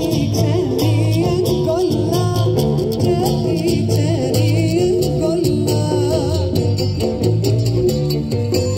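Live band music: a singer's voice with guitar or other plucked strings over a bass line and a steady beat.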